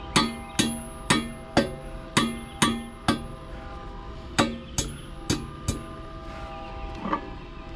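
A hammer striking metal about twice a second, each blow ringing out with a bell-like tone. The blows pause briefly about three and a half seconds in, then stop after about six seconds, with one lighter blow near the end.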